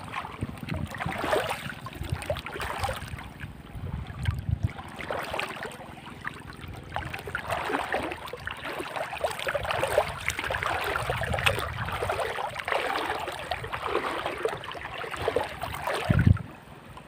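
Water splashing and sloshing in an irregular, continuous wash, as of movement through water.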